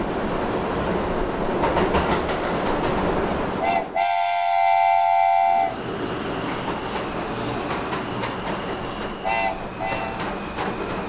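Train running with a steady rumble and wheel noise. About four seconds in, its horn sounds one loud, steady note for about a second and a half, and a few short toots follow near the end.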